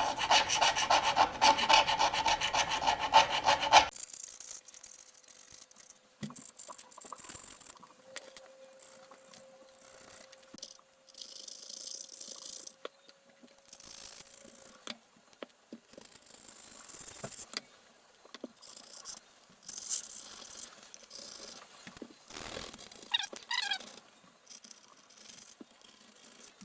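Rapid back-and-forth scraping of old screen adhesive off an iPad Pro's frame, loud for the first four seconds or so. It then gives way to quieter, scattered scrapes and light clicks.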